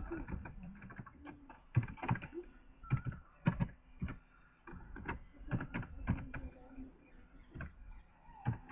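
Faint computer keyboard keystrokes clicking at an uneven pace as text is typed in.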